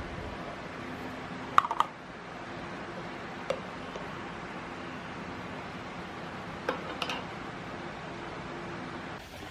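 A few light, sharp clicks of small hard objects, two close together about one and a half seconds in, one more a couple of seconds later and another pair near the middle-end, over a steady low room hum.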